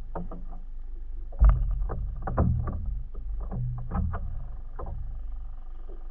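Irregular knocks and slaps on a small boat, with one heavy thump about a second and a half in, over a steady low rumble; they die away about five seconds in.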